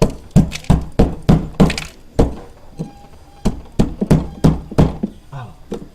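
A tool knocking repeatedly against hard ice built up in a refrigerator, chipping at it with about fifteen sharp strikes, two or three a second, with a short pause midway.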